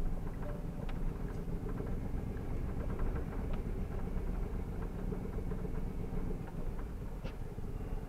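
Vehicle engine running steadily at low speed, with tyres rolling over a dirt lane and many small clicks and rattles.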